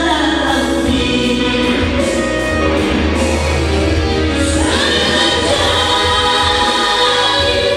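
Three male voices singing a gospel song in harmony through handheld microphones and a PA, over musical accompaniment with a steady bass; about five seconds in they move onto a long held chord.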